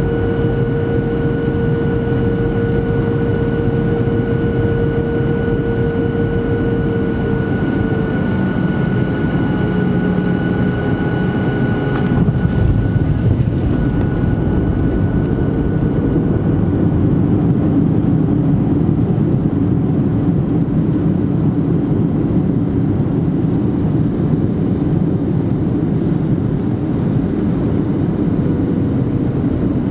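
Cabin noise of a Boeing 737-700 landing: a steady roar of engines and airflow, with an engine whine that eases off about eight seconds in. A bump about twelve seconds in as the wheels touch down is followed by a heavier rumble on the rollout.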